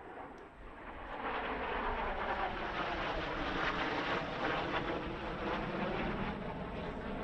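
Northrop T-38 Talon jet trainers passing low, the rush of their twin General Electric J85 turbojets swelling over the first second or so and staying loud, with slow sweeps in pitch as they go by.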